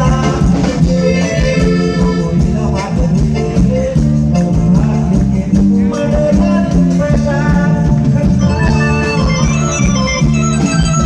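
Thai ramwong dance music: an electronic organ melody over a steady bass and drum beat.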